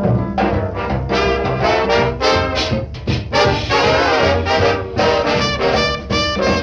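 Background music led by brass instruments in a swing-jazz style, with short repeated horn stabs over a steady beat.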